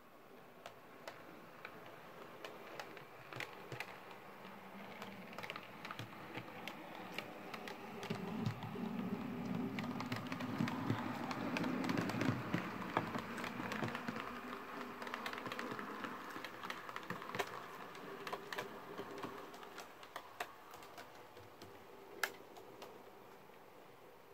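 OO gauge model train running on the layout: a low motor hum with many sharp clicks of wheels over rail joints and pointwork. It grows louder to a peak about halfway through, then fades away.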